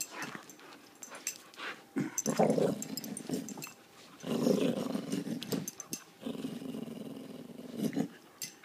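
Dog growling while it tugs on a plush toy in a game of tug-of-war, in three long rough stretches, with scattered clicks and rustles from the struggle.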